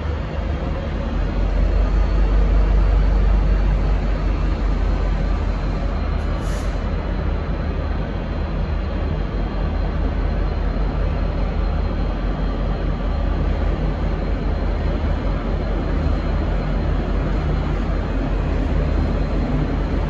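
V/Line N class diesel-electric locomotive (N451), its 12-cylinder EMD two-stroke diesel running as a steady low rumble, swelling slightly about two seconds in, as the locomotive creeps toward the platform. A brief high blip sounds once, about six seconds in.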